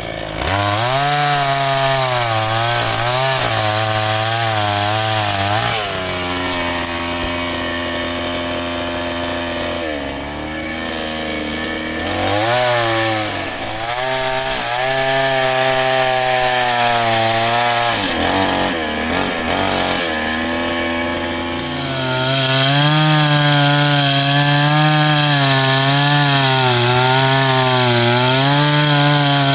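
Two-stroke chainsaw running hard while cutting a large tree, its engine pitch wavering and sagging as the chain bites into the wood. It eases off briefly about two thirds of the way through, then comes back up to full cut.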